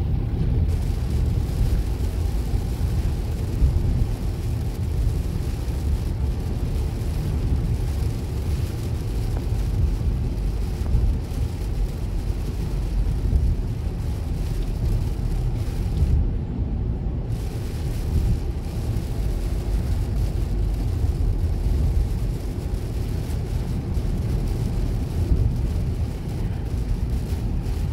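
Steady in-cabin noise of a car driving on a wet highway in heavy rain: a low road and engine rumble under the hiss of rain and wet tyres. The rain hiss drops out for about a second just past halfway through, as the car passes under an overpass.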